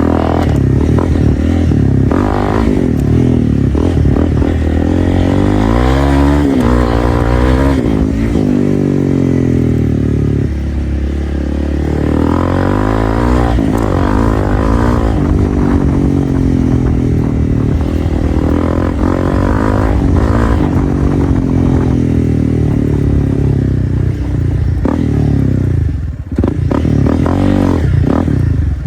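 Honda CRF300L's single-cylinder four-stroke engine through a straight-piped Dominator exhaust while riding. The engine pitch climbs and drops repeatedly as the throttle is opened and shifts are made, with a brief throttle-off about three-quarters of the way through.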